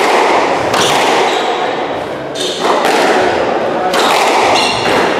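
Squash rally: the rubber ball struck by rackets and thudding off the court walls, a few sharp hits at uneven intervals, each ringing on in the hard-walled court.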